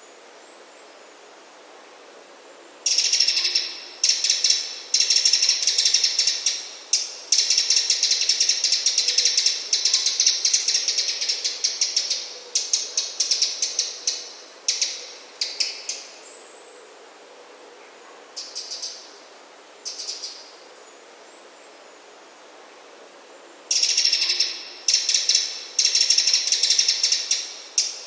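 Eurasian wren calling in bouts of rapid, dry ticking rattles, several seconds long with short pauses between them, starting a few seconds in; the harsh rattling call that wrens use when alarmed.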